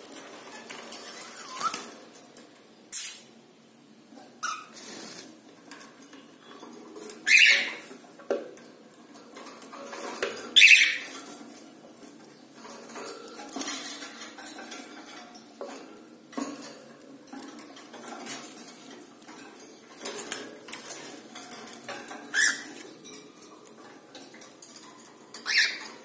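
Cockatiels giving short, sharp chirps every few seconds. Between the calls there are light clicks and scratches from the birds moving about on the wire cage top.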